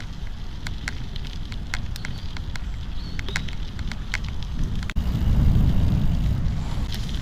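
Merida Silex gravel bike rolling along a gravel path: a steady low rumble of tyre and wind noise with frequent sharp crackles of stones under the tyres. The rumble grows louder about five seconds in.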